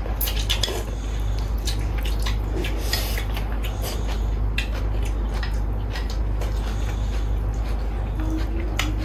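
Chopsticks and a metal fork clicking and scraping against a ceramic noodle bowl as someone eats noodle soup, with a noodle slurp about a second in. A steady low hum runs underneath.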